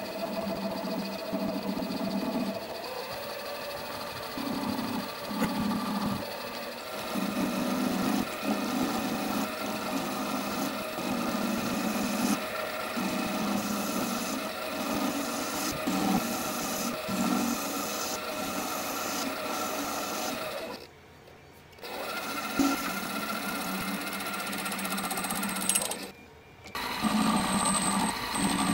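Microlux 7x16 mini lathe running, taking rough turning passes on an aluminium part: a steady motor whine with a low hum that swells and fades as the cut goes on. The sound drops away briefly twice, about three-quarters of the way through and again near the end.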